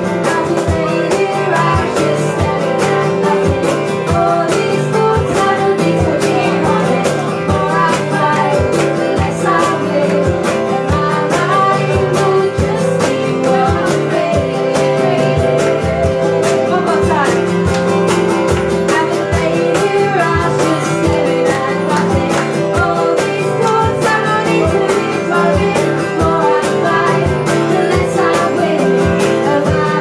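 A woman singing with a steel-string acoustic guitar strummed steadily under her voice, live.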